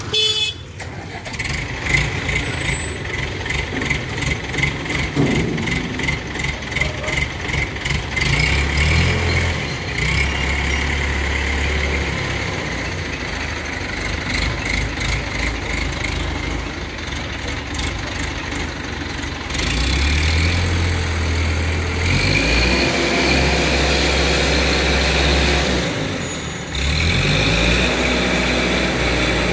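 Diesel engine of a pick-and-carry mobile crane running under load as it lifts and swings a machine. It speeds up about eight seconds in and again about twenty seconds in, rising and falling in pitch near the end.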